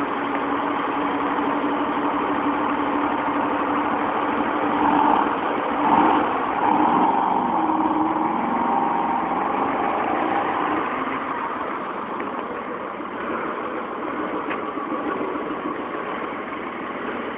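Classic cars' engines idling and running at low speed as the cars move off one at a time, swelling briefly about five to seven seconds in.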